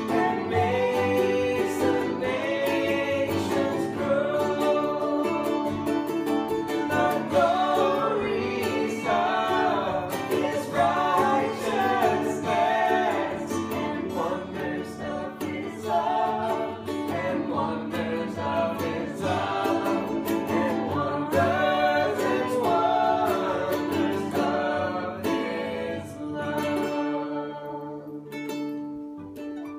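Several voices singing together to strummed ukulele and acoustic guitar. Near the end the singing and strumming stop and a last chord rings out and fades.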